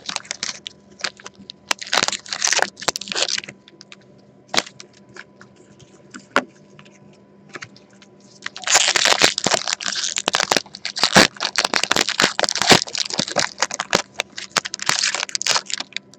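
Crinkling and crackling of a trading-card pack's wrapper as packs of hockey cards are opened and handled. It comes in two spells: a short one in the first few seconds, then a longer, denser one from about nine seconds in until near the end, with a few single clicks in between.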